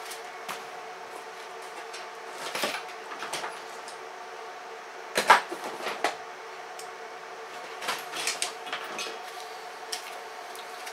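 Scattered knocks and clatter of someone rummaging through tools or a cupboard, the sharpest knock about five seconds in, over a steady faint hum.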